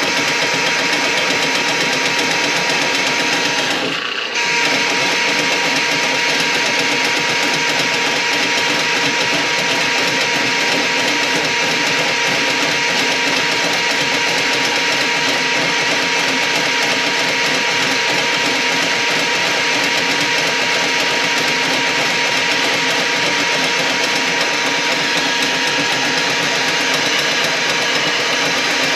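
Electric drain-cleaning machine running steadily, its motor giving a constant whine with a steady high tone as it works through a grease-clogged kitchen drain line. The sound dips briefly about four seconds in, then runs on without change.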